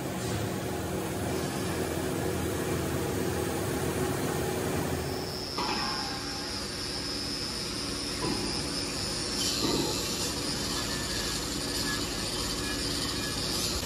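Factory workshop noise: a steady machinery hum and hiss, changing abruptly about five and a half seconds in, after which a steady high whine runs with it.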